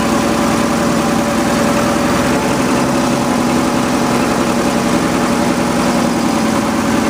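Diesel tractor engine running at a steady speed, close by.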